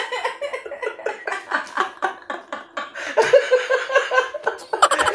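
A man and a woman laughing hard together, a long run of quick ha-ha pulses that swells again partway through.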